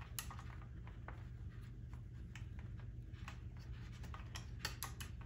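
Faint, irregular clicks and rubbing of wire connectors being handled and pushed onto the terminals of a Harvest Right freeze dryer relay board, over a low steady hum.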